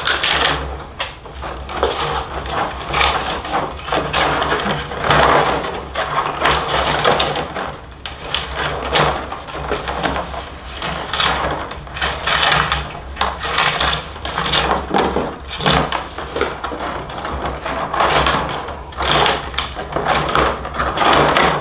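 Rawhide lacing being worked loose and pulled through the laced back of a bison-rawhide frame drum: a run of irregular scraping and rubbing pulls, over a steady low hum.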